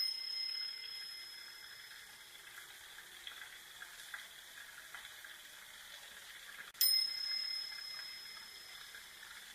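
A small bell struck twice, about seven seconds apart, each time ringing out clearly and fading over a couple of seconds, over a steady rush of water.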